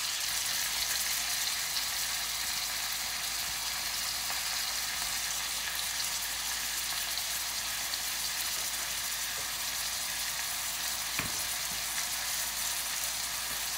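Sliced onions and ginger cubes sizzling steadily as they fry in oil in a steel saucepan, with a single short knock near the end.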